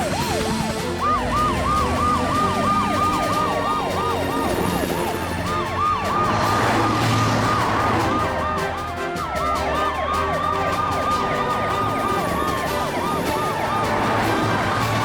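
Several cartoon emergency-vehicle sirens wailing and yelping together, their pitch sweeping up and down over and over, over background music.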